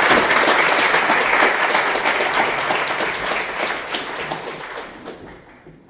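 Audience applauding, a dense round of many hands clapping that fades out near the end.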